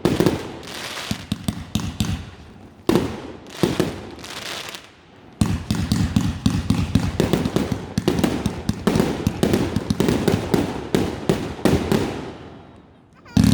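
Fireworks going off: a rapid string of bangs and crackling, with heavier bursts near the start, about three seconds in and about five seconds in, then dense crackling that fades before one loud bang near the end.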